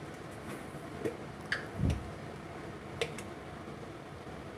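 A few faint light clicks and a soft low thump about two seconds in, from kitchen utensils being handled while ground spices are spooned into a steel bowl of raw chicken.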